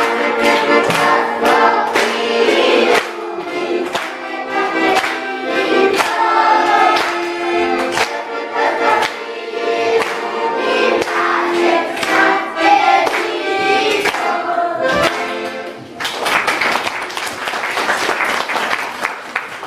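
A group of young children singing a song with piano accordion accompaniment. The song ends about 16 seconds in and applause follows.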